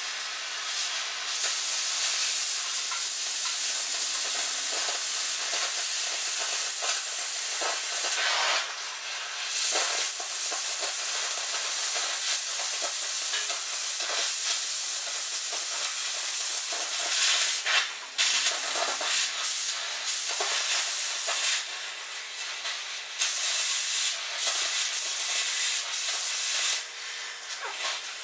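Hand-held metal-cutting torch hissing steadily as it cuts through the steel of a forwarder's front blade, pausing briefly a few times.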